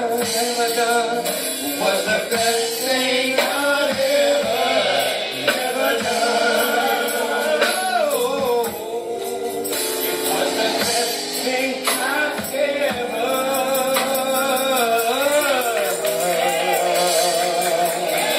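Live gospel music: a man sings with sliding vocal runs over a band, with a tambourine shaking along.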